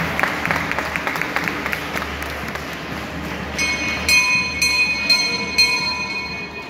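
A crowd clapping in rhythm, fading over the first two seconds or so. About three and a half seconds in, a high shrill tone comes in, pulsing about twice a second, and runs to near the end.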